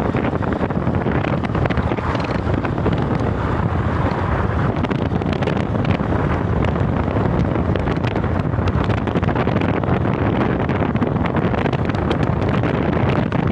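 Steady wind noise buffeting the microphone, a loud low rushing with no distinct events.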